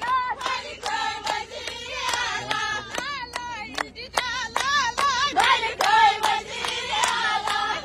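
A crowd of women clapping in rhythm, about three claps a second, while singing a slogan in unison.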